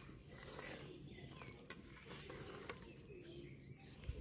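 Faint birds calling in the background, with a couple of light clicks.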